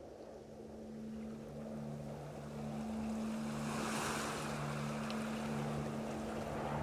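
Ocean waves and wind fading in, swelling in the middle, over a steady low hum.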